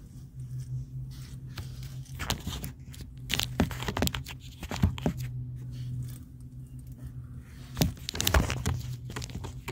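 Fingers handling a phone close to its microphone: irregular scrapes, rubs and knocks, over a steady low hum.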